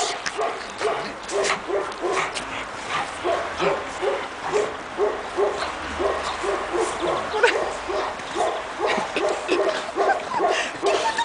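Pekingese puppies yipping and whimpering, a long run of short high calls at about two to three a second.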